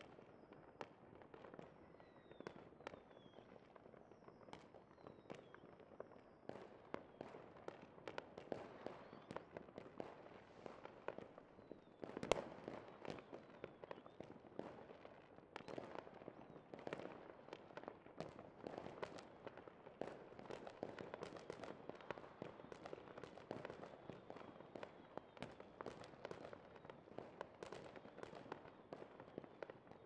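Fireworks display: a steady, irregular stream of bangs and crackles, many overlapping, with a single loudest bang about twelve seconds in.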